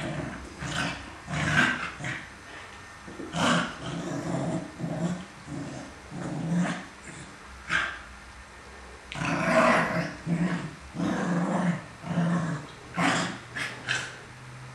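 Two dogs play-fighting, growling in short bursts over and over, a few louder and sharper than the rest.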